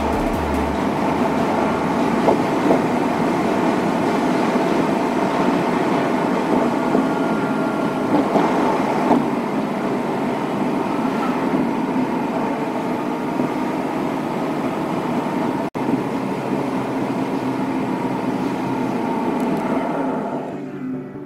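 Steady engine and road noise heard inside a Subaru Impreza G4's cabin while driving, falling away near the end.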